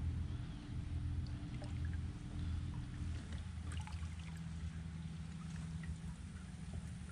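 Bass boat's bow-mounted electric trolling motor humming steadily, its tone shifting about three seconds in, with small water splashes and lapping against the hull.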